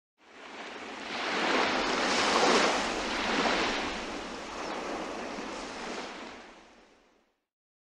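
Rushing surf-like noise, like a wave washing in. It swells over the first couple of seconds, then slowly fades away by about seven seconds in.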